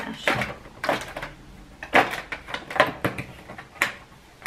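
A cardboard advent calendar door being picked and torn open along its perforation: a series of short tearing and scraping noises, the loudest about two seconds in.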